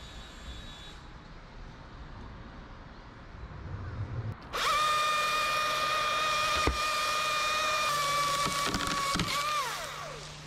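Chainsaw revved to full throttle about four and a half seconds in and held there while cutting through a limb, its pitch sagging a little under load. Near the end the throttle is released and the revs fall away.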